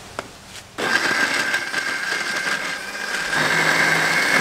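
Electric countertop blender: a click of the lid, then the motor switches on about a second in and runs with a steady whine as it purées a jar of chopped red ingredients. A little past three seconds the whine steps up in pitch and gets louder as the contents turn smooth.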